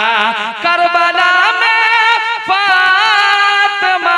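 A man singing a naat (Urdu devotional song) into a microphone. He draws out long held notes with a wavering vibrato, moving to new notes about half a second and two and a half seconds in.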